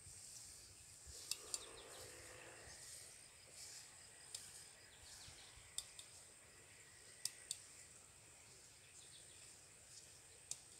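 Near silence: faint outdoor ambience, a steady high hiss with a few sharp clicks scattered through it.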